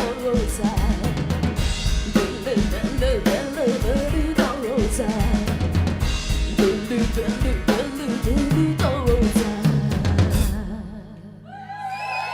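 Rock band playing live, with the drum kit hitting hard on snare and bass drum under the other instruments, as the closing section of the song. The music cuts off suddenly about ten and a half seconds in.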